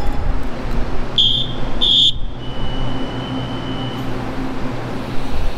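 Two short, high-pitched signal tones about two-thirds of a second apart, then a fainter steady tone, as the departure bell has just stopped and the train's doors are about to close. A Taiwan Railway electric train hums low and steadily underneath.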